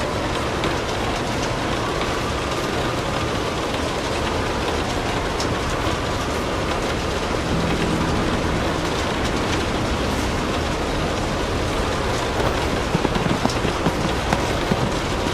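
Steady rain falling, a dense even hiss, with a log fire crackling; a run of sharper pops comes near the end.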